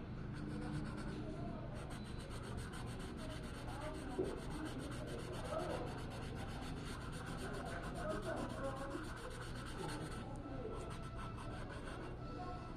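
Quick, continuous scrubbing strokes of an artist's brush or pencil rubbing across the picture surface while colour is laid in, with a short pause about ten seconds in.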